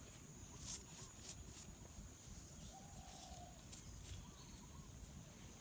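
A chicken calling faintly in the distance, a few short clucking notes, one of them held for just under a second, over a steady high insect drone and light rustling clicks.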